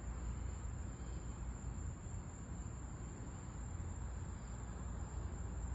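Steady outdoor background noise at night: a low rumble under an even hiss, with a thin, high, steady tone above it and no distinct events.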